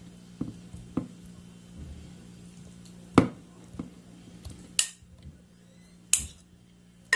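Peeled shrimp being dropped by hand into a plastic food processor bowl: scattered soft taps and knocks, the loudest about three seconds in. A steady low hum runs underneath.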